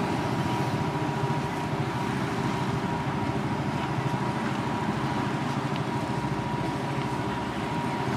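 An engine idling close by: a steady low rumble, with a faint steady high tone running through it.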